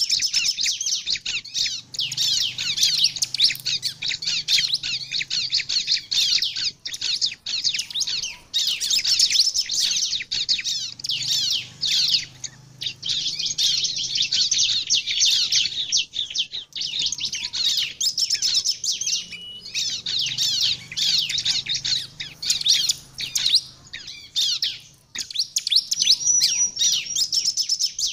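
Bar-winged prinia (ciblek) singing nonstop in rapid, high-pitched chirping trills, broken by short pauses every few seconds.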